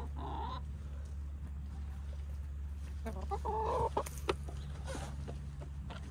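Backyard hens clucking softly: a short call at the start and a run of clucks about three seconds in, with a few sharp taps close by.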